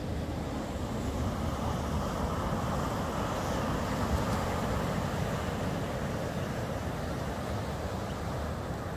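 Ocean surf breaking and washing up a sandy beach, with wind buffeting the microphone. The wash of the waves swells a few seconds in.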